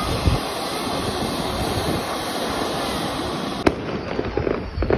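Ground fountain firework spraying sparks with a dense, steady crackling hiss. About three and a half seconds in, this gives way to a sharp bang followed by scattered pops of aerial fireworks.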